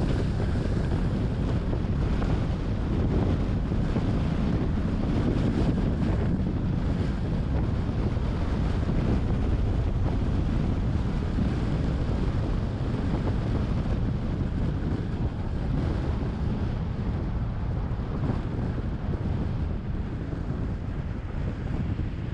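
Steady rumbling noise of a car on the move: wind buffeting the microphone over road noise, with no breaks or changes.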